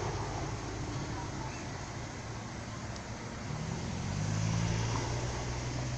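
A motor vehicle's engine humming over outdoor background noise, growing louder a little past halfway through.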